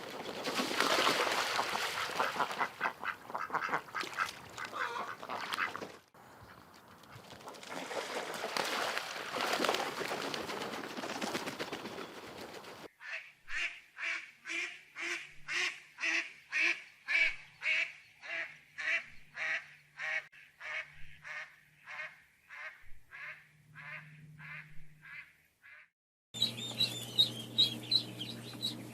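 Ducks quacking: for the first dozen seconds a flock calls in a dense, overlapping chatter. Then a single duck gives a long run of evenly spaced quacks, about two a second. Near the end a different recording cuts in, with quick high-pitched calls over a steady low hum.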